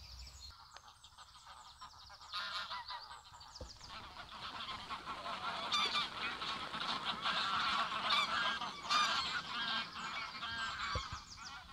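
A flock of geese honking, with many overlapping calls that begin a couple of seconds in and grow louder and denser.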